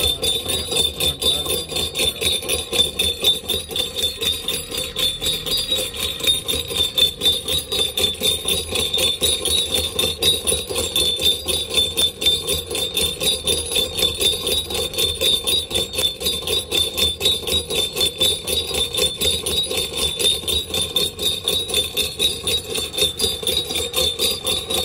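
Electric ghungroo sound machine: brass ghungroo bells bolted to a motor-turned hub, jingling continuously in a rapid, even rattle with a steady high ring over it.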